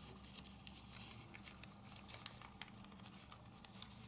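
Folded origami paper rustling and crinkling faintly, with small scattered ticks, as fingers tuck the flaps of paper units into one another's pockets.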